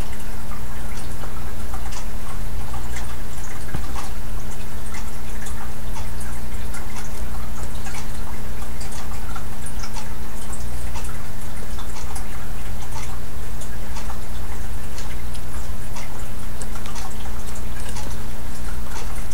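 A steady low hum with faint, scattered ticks and clicks.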